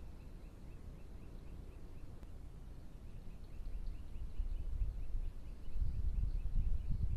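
Low rumbling noise on a trail camera's microphone, growing louder from about four seconds in. Faint high chirps repeat evenly, about three a second, and fade after the first few seconds.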